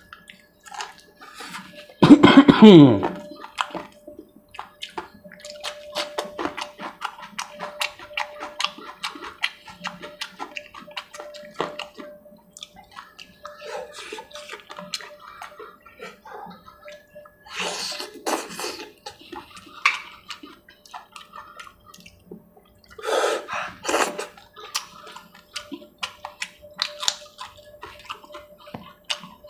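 Close-miked wet eating sounds: chewing, lip-smacking and tearing at saucy chicken curry eaten by hand, with a few louder slurping bursts later on. About two seconds in, a short, loud falling vocal sound stands out.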